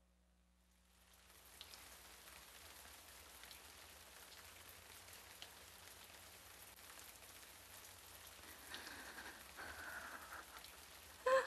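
Faint steady hiss that fades in about a second in, with a few soft clicks and faint tones, and a brief louder sound right at the end.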